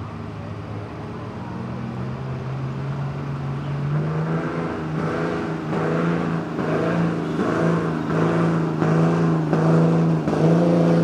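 Ram 2500 pickup's Cummins turbo-diesel straight-six running hard under the full load of a pulling sled. Its pitch climbs about two seconds in and again about four seconds in, then holds high and steady with a regular pulsing, getting louder as the truck comes closer.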